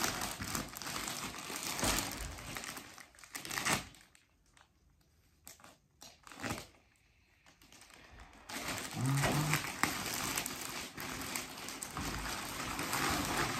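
Plastic packaging wrap crinkling and rustling as it is handled and pulled off a bag. Midway it goes nearly quiet for a few seconds, broken by a couple of short clicks, then the crinkling starts again.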